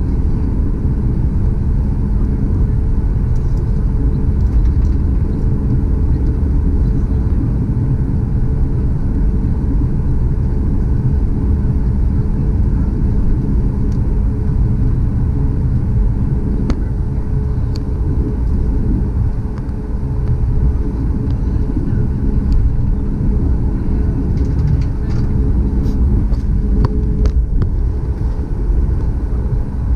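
Cabin noise of a Boeing 737 MAX taxiing: a steady low rumble from its CFM LEAP-1B engines at idle and the rolling airframe, with a faint steady hum. A few light clicks and rattles come in the second half.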